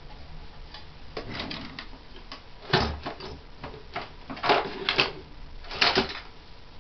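Irregular clicks and light knocks, a few at a time. The sharpest come about three seconds in, around four and a half to five seconds in, and near six seconds.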